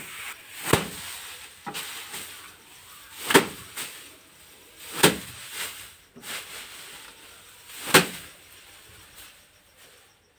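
A bundle of rice stalks beaten down onto a wooden bench to thresh out the paddy grain: five loud whacks at uneven intervals, with a few softer knocks between. The whacks stop a couple of seconds before the end.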